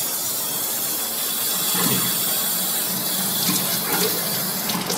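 Water rushing through the drained plumbing as the hot water heater's cold-water supply shut-off valve is reopened: a steady hiss, joined about two seconds in by a low steady hum. The hiss fades near the end.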